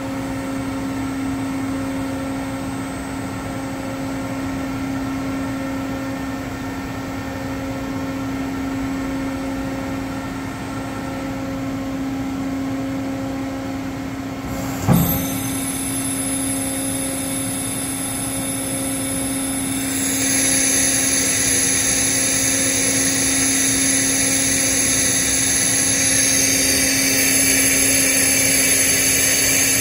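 Doosan DCM 2740 CNC bridge mill running with a steady hum. There is a single sharp clunk about halfway through, and a louder hiss joins about two-thirds of the way in.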